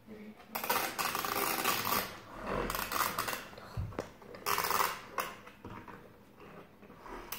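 Plastic toy volcano being handled and pushed into place in a glass dish: several bursts of rough scraping and rubbing of plastic against glass.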